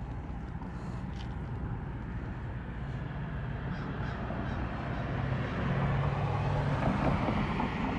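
A vehicle going by: a steady low hum with rushing noise that grows louder about six seconds in and then eases off.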